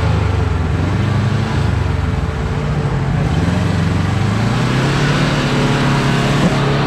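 Kawasaki KRX4 1000 side-by-side's parallel-twin engine running under throttle, its pitch dropping about two seconds in and rising again around four seconds.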